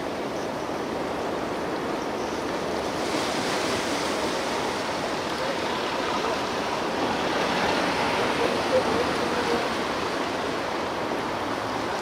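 Ocean waves breaking on the shore at night, a steady wash of surf that swells about three seconds in and builds to a peak near the end.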